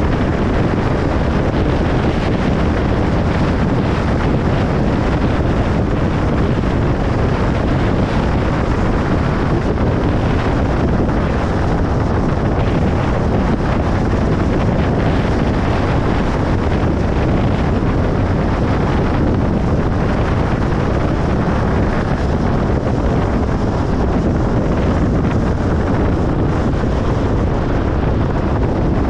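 Steady road noise of a car driving on a highway: tyre and wind noise blended into an even, deep hiss that does not change.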